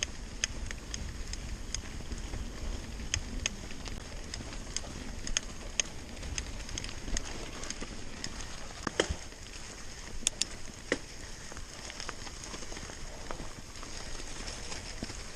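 Mountain bike riding over a rough trail: irregular clicks and rattles from the bike over a steady rumble of wind and tyres, with a few louder knocks near the middle.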